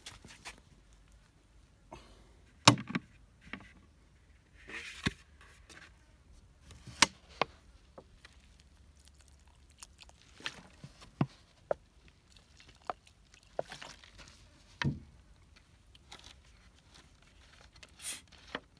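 Sparse clicks and knocks from a plastic bottle being handled and tipped over potted plants, with a short rustle about five seconds in.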